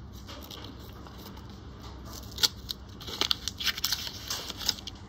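Australian $1 coins clicking and clinking against each other as they are handled and sorted from a roll. One sharp click comes about two and a half seconds in, then a quick run of clicks through most of the next two seconds.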